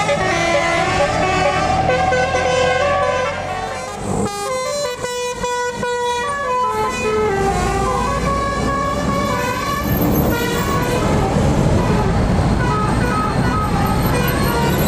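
A bus's multi-tone 'telolet' musical horn of the Basuri kind playing a melody of quick stepped notes, over the bus's running engine. The engine's low rumble grows louder in the second half.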